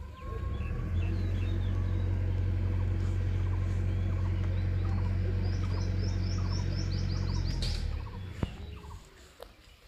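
A steady low engine drone that stops about eight seconds in, with small birds chirping over it and a quick run of chirps shortly before the drone ends.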